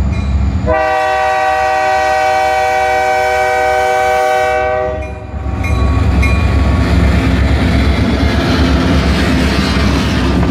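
Diesel locomotive's multi-note air horn blowing at a crossing, with a brief break about half a second in, then one long blast of about four seconds over the low rumble of the engine. After the horn stops, the locomotive passes close by and the loud rumble and clatter of the moving train take over.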